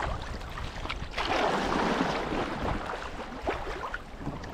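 Water rushing and splashing around a kayak, with one louder rush lasting about a second and a half starting about a second in, over a steady low rumble of wind on the microphone.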